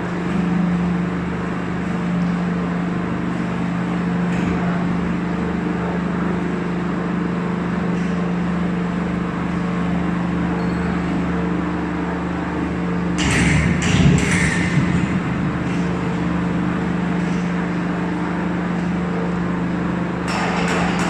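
Electric-motor-driven steel wire shredder running with a steady low hum and drone. A burst of sharp metallic clanking and scraping comes about two-thirds of the way through, and another begins near the end, as tyre steel wire is torn in the cutters.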